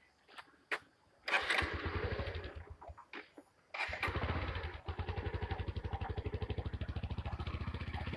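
A small engine starts after a few clicks about a second in, runs briefly and dies away, then starts again near four seconds in and keeps running with an even, rapid pulsing beat.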